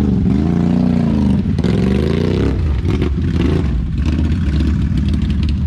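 ATV engine revving up and back down twice, then running at a steadier pitch with some clatter.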